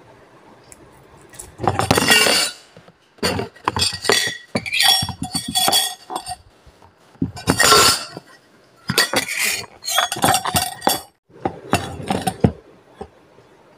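Several bursts of clinking and rattling from objects handled close to the phone's microphone, loudest about two and eight seconds in.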